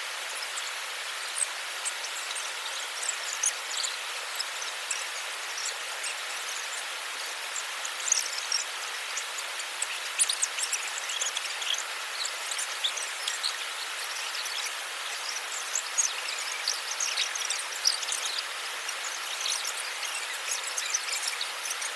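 Outdoor ambience: a steady rushing hiss with many short, high-pitched ticks and chirps scattered through it.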